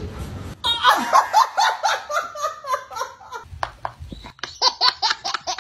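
Laughter in short repeated bursts, ending in a baby's high-pitched belly laughs in a quick run.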